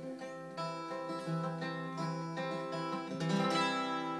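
Acoustic guitar playing the closing chords of a song unaccompanied, strummed several times with the loudest strum about three and a half seconds in, then left to ring and fade.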